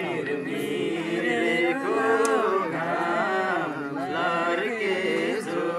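Male voices singing a Nepali folk song, drawn-out notes that waver and turn in a slow melody.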